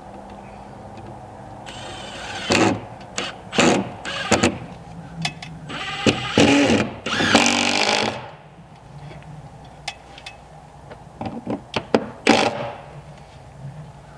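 A power tool run in a series of short bursts, the longest about two seconds, its pitch shifting as it spins up and down, then a few more quick bursts near the end.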